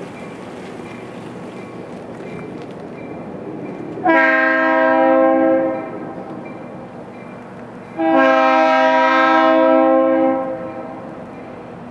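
Locomotive air horn sounding a chord twice, a shorter blast followed by a longer one, over the steady noise of the train.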